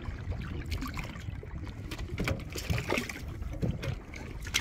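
Water lapping and trickling around a small fishing boat, with scattered light knocks and taps.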